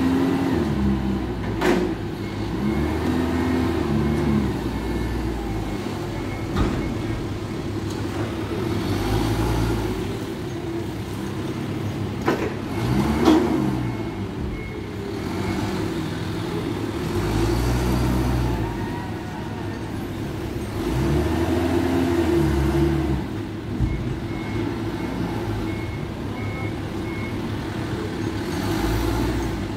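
Toyota forklift engine working, its speed rising and falling every few seconds as the truck drives and lifts cotton bales. A high reversing beeper pulses in a few spells, and there are a few sharp knocks.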